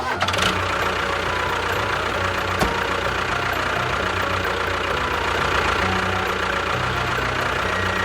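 A motor running steadily, its low hum shifting up and down in pitch a few times.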